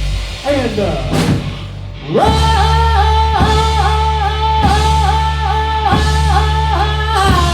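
Rock band playing loudly, with electric guitar, bass and drums. In the first second a note slides downward. About two seconds in, a long held note comes in, pulsing in regular dips over a steady low bass note.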